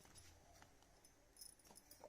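Near silence: room tone, with a few faint light clicks near the end.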